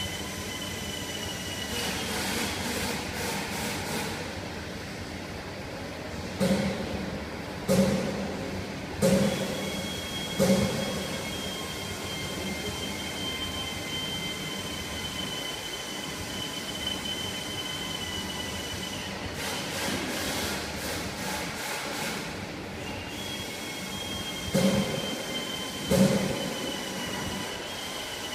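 Commercial washer-extractor running: a steady high motor whine that shifts pitch a few times over a constant mechanical rumble. Short low thumps come four in a row about a second apart, then two more near the end.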